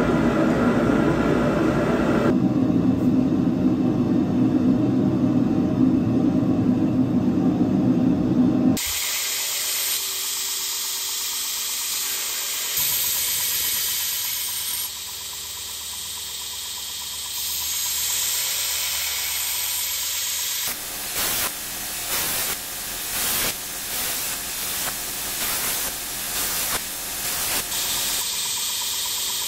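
A loud steady low rushing noise for about the first nine seconds, then a belt grinder grinding bevels into railroad-spike steel, a high hiss. In the last third the grinding comes in short repeated passes as the blade is pressed to the belt and lifted off.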